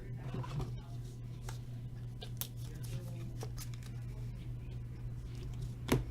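Trading cards being handled and shuffled through by hand: soft scattered rustles and light clicks, with a sharper click near the end, over a steady low hum.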